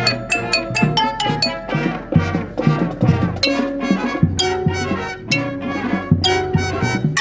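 Marching band playing: a quick run of marimba notes close by in the first couple of seconds, then the brass section holding sustained chords with mallet and percussion strikes over them.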